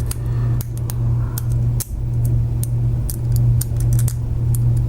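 Lock pick working the tiny pins inside a small padlock cylinder during single pin picking: many small, irregular metallic ticks and clicks. A steady low hum runs underneath.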